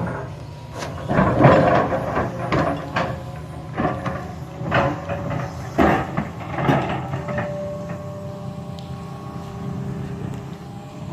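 Hitachi EX300LC excavator's diesel engine running steadily under a series of loud clunks and scrapes, about seven in the first seven seconds, from the machine working a big stone. The knocks die away in the later seconds, leaving the engine running evenly.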